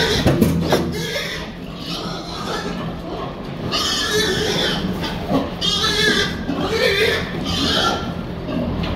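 A crowded group of pigs grunting and squealing in repeated short outbursts, the loudest about four, six and seven seconds in; the pigs are fired up as they are driven along.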